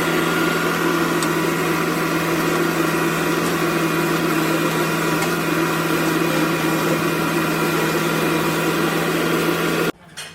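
Heavy construction machinery running steadily: an engine with several steady whining tones over a rough grinding noise, cutting off abruptly near the end.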